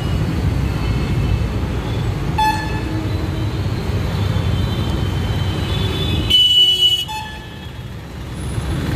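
Street traffic rumbling, with vehicle horns honking: a short toot about two and a half seconds in and a louder, longer honk at around six and a half seconds.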